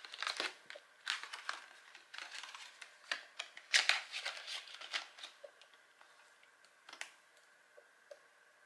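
Crinkling and rustling of a clear plastic binder pocket and paper cash as bills are slid in and a paper savings tracker card is handled, in a run of short, uneven rustles over the first five seconds. A single sharp click comes about seven seconds in.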